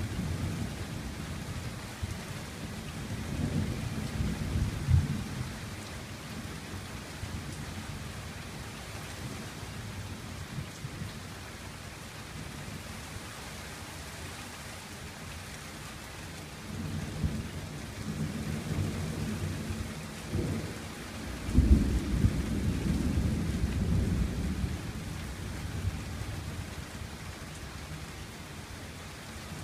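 Thunder rumbling over steady rain hitting a gazebo roof. There is a rumble a few seconds in and a longer roll building later on, then a sudden loud crack about two-thirds of the way through, the loudest moment, which rolls on for a few seconds.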